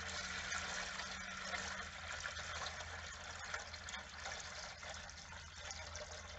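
Water poured steadily from a plastic bucket, splashing into the shallow bilge of a narrowboat engine bay, filling it to set off an automatic bilge pump.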